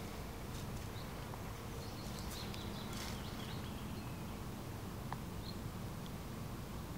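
Steady low outdoor rumble with a few faint, short high bird chirps, one cluster about two to three seconds in and single ones later.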